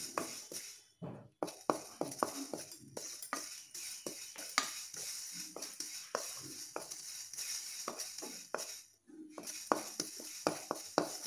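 Sesame seeds dry-roasting in a kadai on a low flame, crackling with many irregular small pops, while a wooden spatula stirs and scrapes them across the pan.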